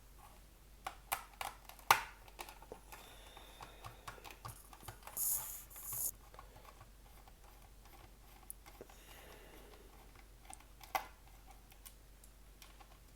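Screwdriver work on an access point's parts: scattered sharp clicks and taps of the screwdriver with its Phillips bit, several in the first two seconds and one more later on, plus a brief scraping rasp about five seconds in.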